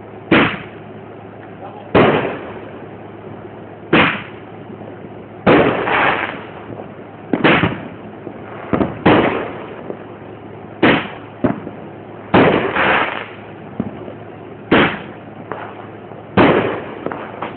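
A consumer firework going off in a series of loud bangs, about one every one and a half to two seconds, some coming in quick pairs, each trailing off in a short echo.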